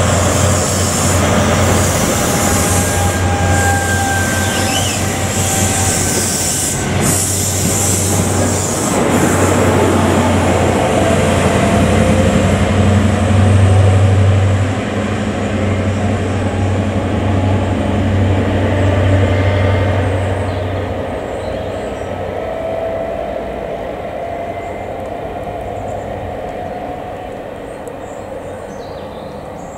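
Class 43 High Speed Train power cars running at speed, their diesel engines giving a steady low drone over wheel-on-rail noise. The sound fades over the last third as the train draws away.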